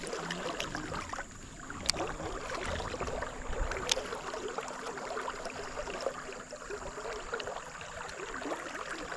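Stream water running steadily, with a couple of faint clicks.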